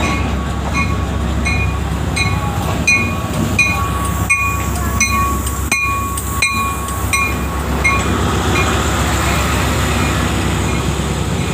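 Pakistan Railways ZCU-30 (GE U30C) diesel-electric locomotive rolling slowly past at close range as the train arrives, its diesel engine a steady low rumble, with a few sharp knocks. A high beep repeats about twice a second over a thin steady whine until about eight seconds in, when the coaches are rolling by.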